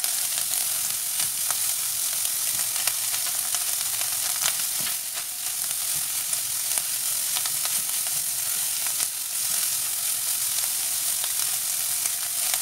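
Diced calabresa sausage frying in a hot nonstick frying pan, in the fat it has released: a steady sizzling hiss full of small crackles, with the pieces stirred by a silicone spatula.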